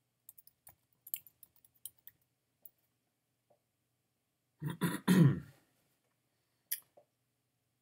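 Light computer-keyboard typing clicks for the first couple of seconds, then a man clears his throat in two quick pushes about five seconds in, followed by a single click near the end.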